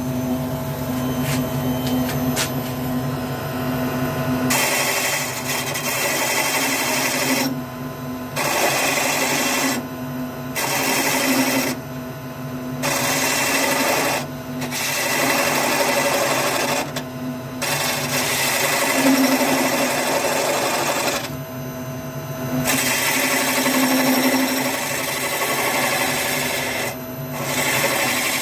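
Wood lathe running with a steady hum; about four seconds in, a hand-held turning tool starts cutting the spinning wooden blank, a shaving sound that comes in passes and stops briefly about seven times as the tool is lifted off between cuts.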